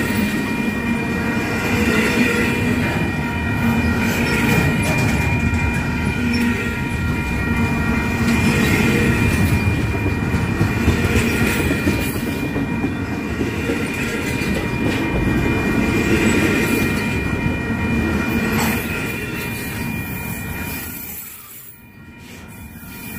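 Double-stack intermodal freight train rolling past: loud rumble of wheels on rail with a steady high-pitched wheel squeal held over it. The noise drops away briefly near the end, then picks up again.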